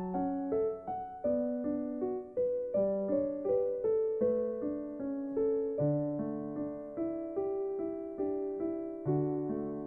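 Slow solo piano music: a gentle melody of single notes, each struck and fading, about two a second.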